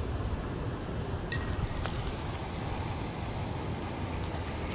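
Steady low rumble of wind across the microphone, with two faint clicks a little over a second in.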